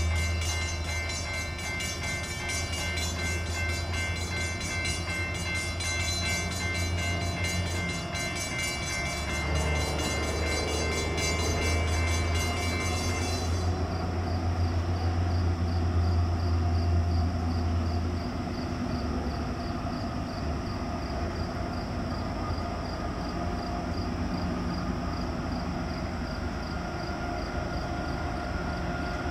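Diesel freight locomotive's air horn sounding, several tones held together, for about the first fourteen seconds before cutting off. Under and after it, the deep rumble of the locomotive's diesel engine and the train's running noise grow as it approaches.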